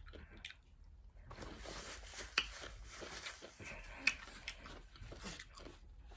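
Close-miked chewing and biting of food, soft wet crackles and mouth clicks, with two sharper clicks a couple of seconds apart.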